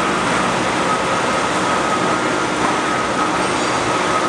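Heavy construction machinery running steadily, an even mechanical noise with a thin, steady high whine over it.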